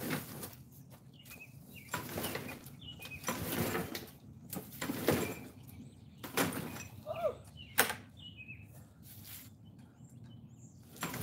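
Irregular rustling and scraping noises in uneven bursts, with birds chirping in the background.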